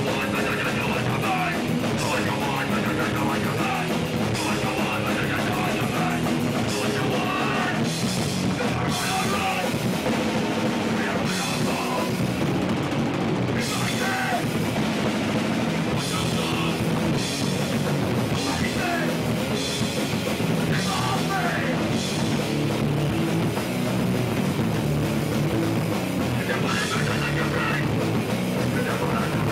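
Hardcore punk band playing live: distorted electric guitar, bass guitar and drum kit, with a vocalist shouting into a microphone.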